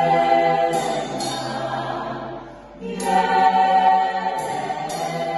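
Choir singing held chords in harmony. The sound thins out and drops about two and a half seconds in, then the voices come back in together about half a second later.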